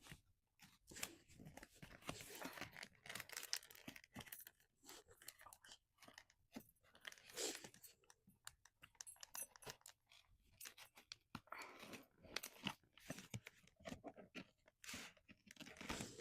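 Cardboard shipping box and its packing tape being cut and torn open by hand: irregular scraping, tearing and crinkling.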